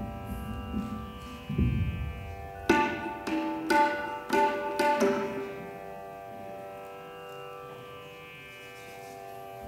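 Tabla and mridangam struck a handful of times over a steady tanpura-style drone: a few deep bass strokes in the first two seconds, then about six sharp, ringing strokes around three to five seconds in, after which only the drone carries on.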